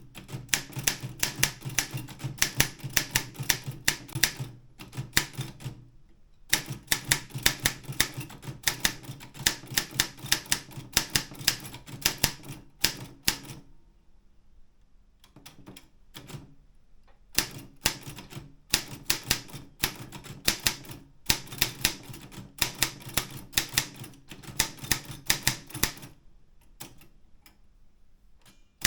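Optima M12 manual typewriter being typed on: quick runs of sharp key strikes, several a second, broken by a few pauses of two to three seconds.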